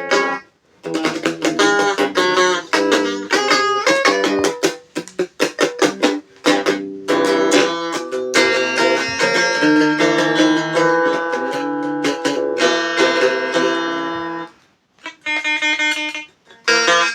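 Instrumental guitar music: plucked notes and chords, with the playing stopping briefly about half a second in, again around six and a half seconds, and near fifteen seconds.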